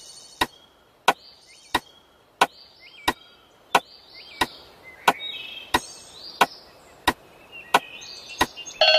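A steady series of sharp, wood-like knocks, about one every two-thirds of a second, with faint bird-like chirps behind them. A bright chime starts right at the end.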